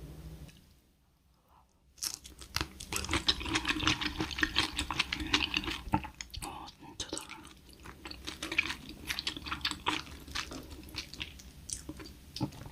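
Close-miked eating sounds: chewing with crisp crackling and wet mouth clicks. They start suddenly about two seconds in, after a short near-silent gap.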